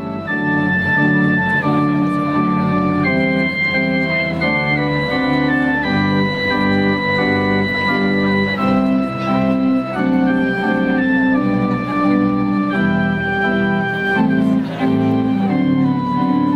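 Organ music: held chords with a slow melody of sustained notes, changing every second or so.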